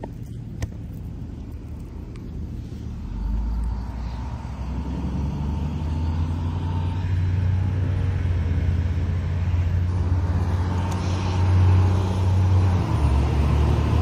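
An engine running with a steady low hum, level in pitch, that grows louder from about three seconds in.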